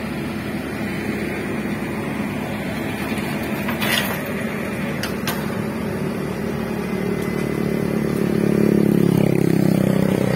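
An engine running steadily, getting louder about eight seconds in, with two short sharp clicks around four and five seconds in.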